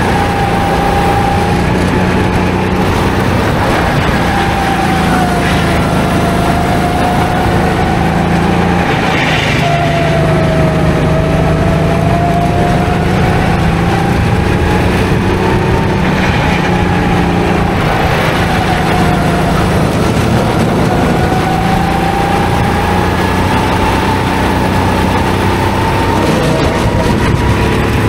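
Go-kart engine running continuously, its pitch rising and falling as the revs go up and down with throttle changes.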